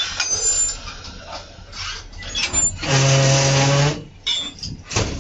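Compressed air hissing out at a narrow-gauge railcar's coupling. The loudest blast comes about three seconds in, lasts about a second and carries a steady low hum. Sharp metallic clicks and clanks follow near the end.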